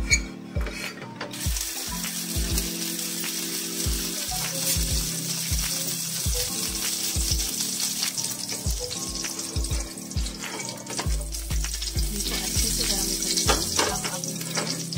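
A lump of ghee melting and sizzling in a hot steel frying pan on a gas burner. A steady hiss sets in about a second and a half in, over background music with a steady beat.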